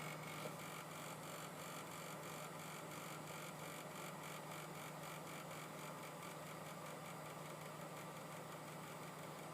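Thermaltake TR2 600 W computer power supply giving off a steady low hum. It is a strange noise that started suddenly, which the owner puts down to the fan or maybe something else in the unit.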